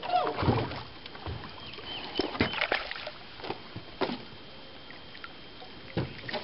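Scattered light knocks and water splashes from a landing net being worked in the water beside a small boat, with a hooked bass splashing at the surface near the end.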